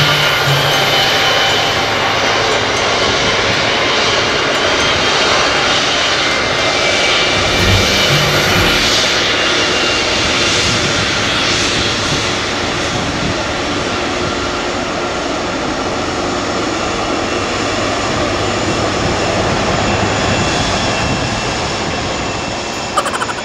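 Twin jet engines of a Boeing 777 airliner running at low power as it taxis: a steady jet rush with a thin high whine, easing slightly near the end.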